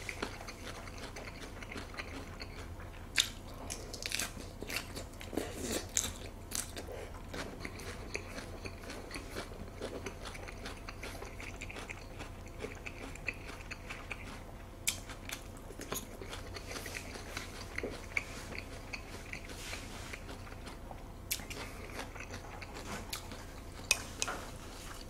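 Close-miked chewing of a mouthful of lettuce and raw salmon: soft crisp crunches and mouth clicks at irregular intervals, with a few louder ones.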